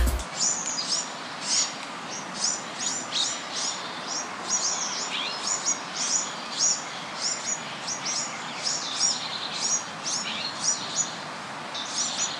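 Small birds chirping, short high calls repeating about twice a second over a steady background hiss, like outdoor birdsong ambience.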